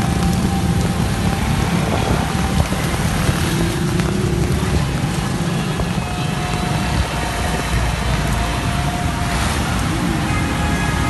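Heavy traffic on a rain-soaked road: truck and motorcycle engines running with a steady low rumble, under a constant hiss of tyres and rain on the wet surface.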